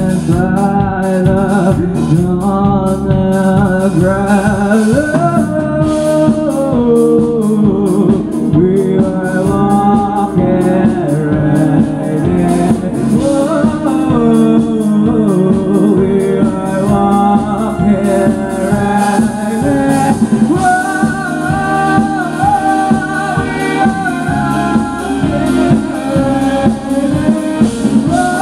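Live indie rock band playing through a club PA: electric guitars and keyboard over a steady drum beat, with a sung melody on top.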